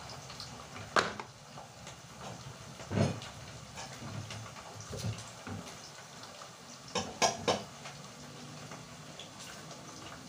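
A few scattered knocks and clinks of kitchen things being handled: a sharp clink about a second in, a duller thump around three seconds, and two quick clicks close together about seven seconds in.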